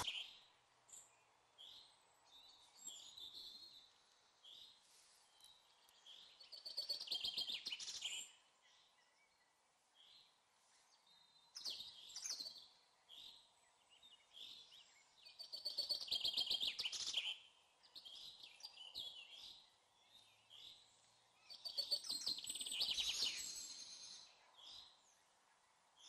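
Small songbirds singing: faint chirps throughout, with louder phrases of rapid trilling notes about every seven or eight seconds.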